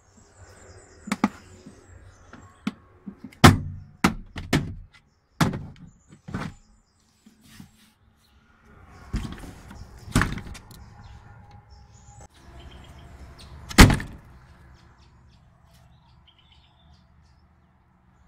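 A scattered series of sharp knocks and thuds from things being handled in the back of a pickup's canopy, the loudest about three and a half and fourteen seconds in. Birds chirp faintly between them.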